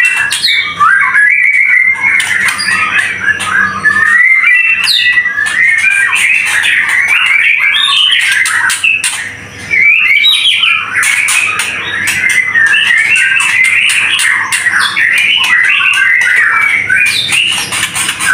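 White-rumped shama (murai batu) singing in full, near-continuous song: a rapid run of varied whistled and chattering notes with sharp clicks mixed in, breaking off briefly about nine seconds in.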